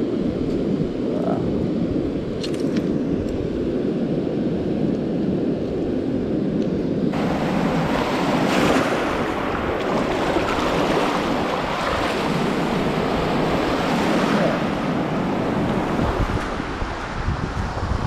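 Sea surf and wind buffeting the microphone, a steady low rush. About seven seconds in it turns abruptly brighter and fuller: waves washing and splashing around legs wading in shallow breaking surf.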